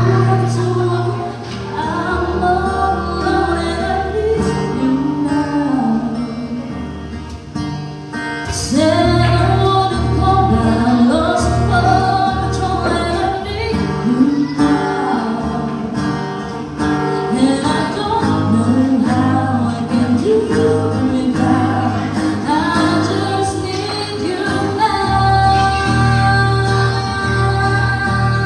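Live acoustic duo: a woman singing a ballad through a microphone and PA, accompanied by strummed acoustic guitar.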